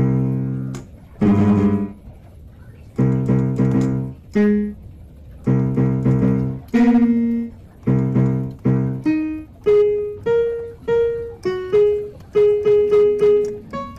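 Background piano music: chords struck about once a second, giving way after about nine seconds to a run of single repeated notes.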